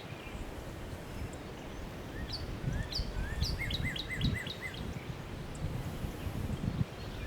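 Small birds chirping: short slurred notes repeated in a quick series about two to four seconds in, over a low, uneven rumbling noise.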